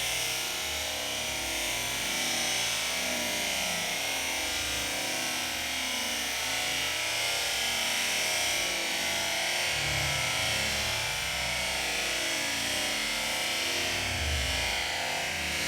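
Background music: a dense, steady rock track with distorted electric guitar.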